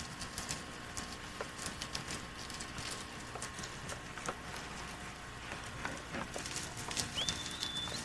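Horse and cattle moving through sagebrush: scattered hoof knocks and brush rustling. Near the end, one short whistle that rises quickly and then holds steady.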